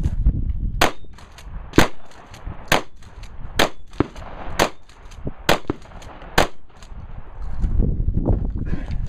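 Seven gunshots fired at a steady, deliberate pace of about one a second. A low rumble follows near the end.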